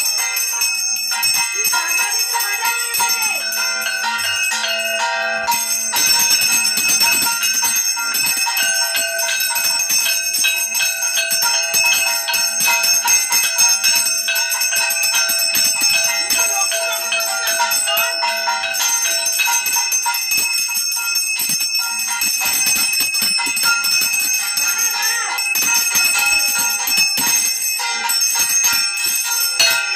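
Hand bell rung continuously during puja worship, a steady ringing of quick repeated strikes.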